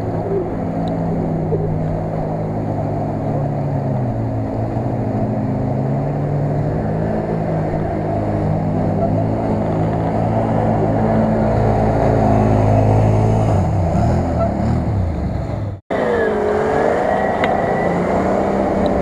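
Off-road vehicle engines running under load and revving as they wade through a flooded marsh, the pitch rising and falling. The sound drops out for an instant about 16 seconds in, then another engine carries on revving.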